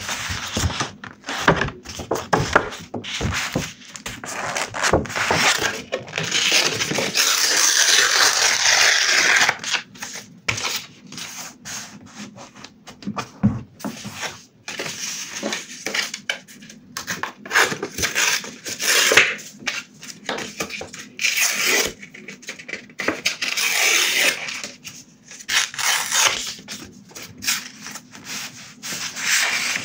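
Sheets of blue paper rustling, crinkling and rubbing under close-miked hands in irregular bursts, with a few longer stretches of tearing. Near the end a torn piece is smoothed flat onto a paper journal page.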